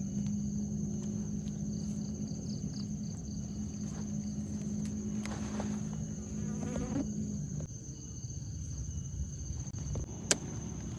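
Insect chirring on one steady high note over a low steady hum, with a single sharp click about ten seconds in.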